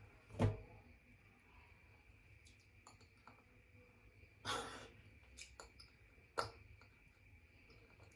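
Quiet handling and eating noises: a single knock about half a second in, a short breathy exhale around the middle, and a sharp click a couple of seconds later, with a few faint ticks over steady room hum.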